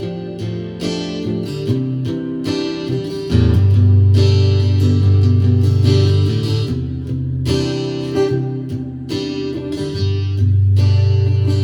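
Yamaha TransAcoustic acoustic guitar played through an acoustic amp: a run of picked and strummed chords with ringing bass notes, a louder chord struck about three seconds in and left to sustain.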